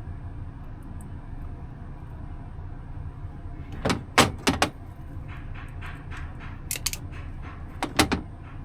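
Steady low machine hum with a handful of sharp metallic clicks and clatters: a quick group about four seconds in and another near the end.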